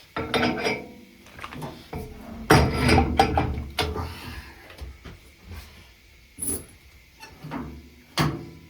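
Irregular clinks and knocks of tools and wheel weights being handled at a wheel balancer, with a louder clattering run around three seconds in and a single sharp knock near the end.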